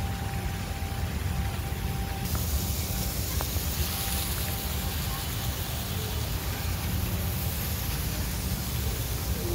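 Steady outdoor background noise: a low, wavering rumble with a hiss over it that turns brighter about two seconds in, and a faint steady tone running through it.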